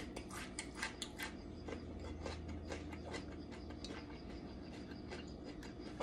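Close-up chewing of crisp raw radish: a run of irregular, crunchy clicks.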